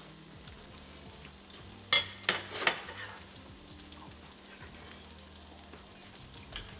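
Faint steady sizzle of fish frying in butter in a pan. About two seconds in come three short, sharp coughs as a piece of hot fish catches the back of the throat.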